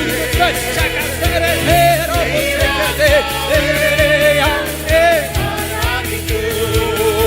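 Malayalam Christian worship band playing, with a drum beat, bass and keyboards under a gliding sung melody.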